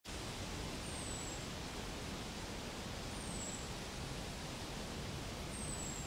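Steady outdoor hiss of dry-forest ambience, with a short, high, thin call that falls slightly in pitch, heard three times about two and a half seconds apart.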